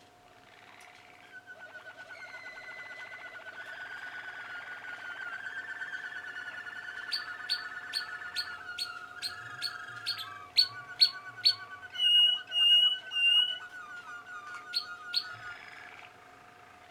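Young Malinois waterslager canaries singing. A rolling trill swells over several seconds, then a run of sharp, loud notes at about two a second, then three drawn-out higher whistles and two more sharp notes before the song stops near the end.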